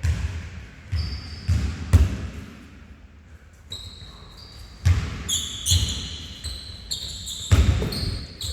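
Basketball dribbled on a gym floor: bounces about twice a second, a pause, then more bounces, with short high sneaker squeaks in the second half.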